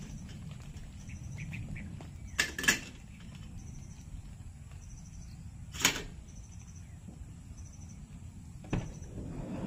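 A few sharp knocks or clacks: two close together about two and a half seconds in, a louder one near six seconds and another near nine. Under them are a low outdoor rumble and a short high chirp repeating about once a second.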